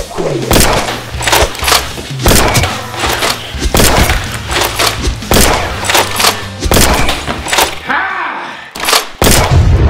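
Foam-dart blasters firing and darts hitting in a rapid string of sharp cracks and thuds, about two a second, with shouting and a bass-heavy music track underneath.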